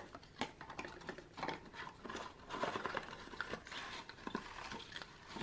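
Faint rustling and small irregular taps and scrapes of a small cardboard box being opened and handled, with shredded paper filler rustling inside.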